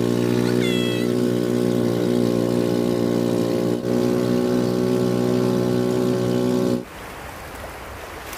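Engine of a motorized outrigger boat running at a steady speed. About seven seconds in, it cuts off abruptly to a quieter wash of water.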